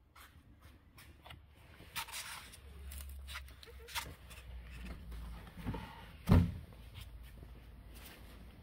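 Scattered clicks, knocks and rustling from someone moving about and handling a stripped car body shell, with one loud low thump about six seconds in.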